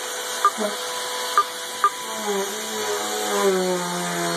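Upright vacuum cleaner running on a recliner's seat cushion with a steady whine, with a few sharp knocks in the first two seconds as the machine is handled against the chair. A lower, wavering hum joins from about halfway.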